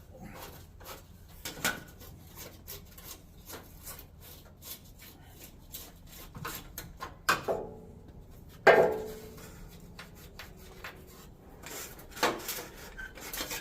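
Scattered taps, clicks and rubbing of hard parts being handled, with louder knocks about seven and nine seconds in; the second rings briefly.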